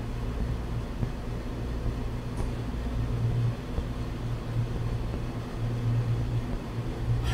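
A steady low hum with no speech over it.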